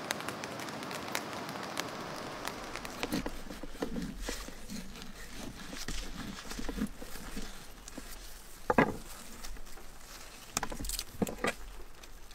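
Rain pattering for the first couple of seconds, then scattered light knocks and clicks, with one sharp thump a little after the middle and a few more knocks near the end.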